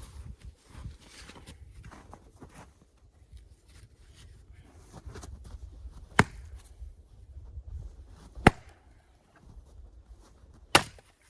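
Axe blows into wood, three sharp strikes a little over two seconds apart, with quiet rustling between them.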